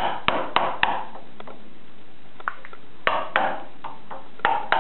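Wooden mallet striking a chisel, chopping waste from a chamfer in maple. The sharp knocks come in quick runs of about three a second: four in the first second, a pause of about two seconds, then another run and two more blows near the end.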